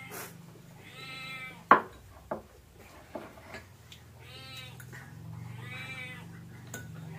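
A cat meowing three times, each call short and rising then falling. A spoon clinks sharply against a ceramic bowl about a second and a half in, with a couple of lighter clinks after.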